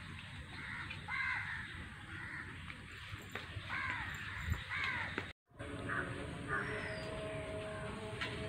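Crows cawing, several harsh caws in ones and pairs. The sound drops out briefly about five seconds in, at an edit.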